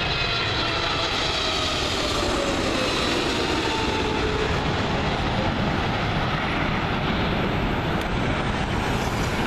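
Boeing 777-300ER's GE90 turbofan engines passing low overhead on landing approach: steady, loud jet noise with whining tones that fall in pitch over the first few seconds as the aircraft goes by.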